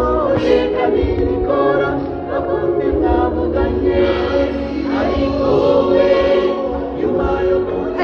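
A church choir singing, many voices together, continuing steadily.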